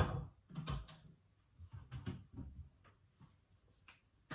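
Kitchen handling noises: a frying pan moved on an electric hob and items taken from a wall-cupboard shelf, giving a string of short knocks and clatters, the loudest at the start and just under a second in.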